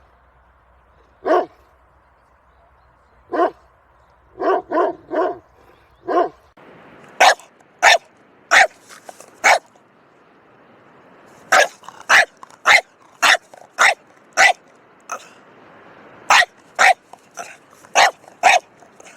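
Large dog barking: single barks a couple of seconds apart, then a quick run of three, and from about seven seconds in, runs of barks at about two a second broken by short pauses.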